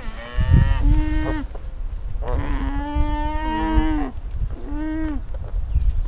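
Alpacas humming: several short hums and one long hum about two seconds in, each held on a steady pitch and dropping at the end. This is the humming an alpaca mother makes to her newborn cria.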